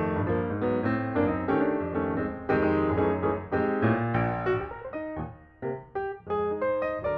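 Background piano music: a quick, continuous run of struck notes that thins out briefly about five seconds in.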